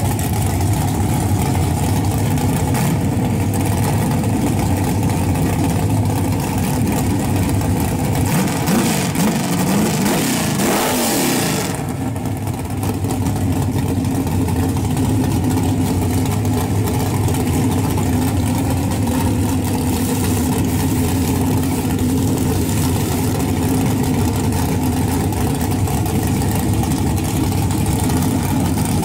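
Drag-racing Chevrolet Camaro's engine idling loudly and steadily at the starting line, with a brief rise and fall in engine pitch about ten seconds in.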